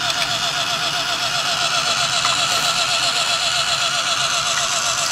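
Battery-operated toy car's small electric motor running, a steady whine with a fast, even warble.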